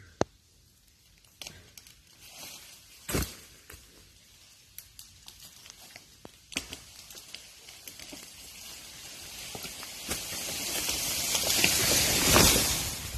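A tan oak falling: a few sharp cracks, then its branches and leaves rush through the surrounding trees in a swelling swish that peaks in a crash as the crown hits the ground near the end.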